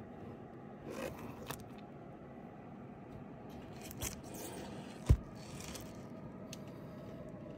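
Light scraping and rattling from comic books being handled in their storage boxes, with a few small clicks and one loud low thump about five seconds in.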